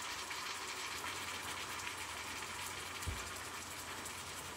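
Deer meat sizzling as it browns in a stainless steel stock pot: a steady hiss with fine crackle, and a soft low thump about three seconds in.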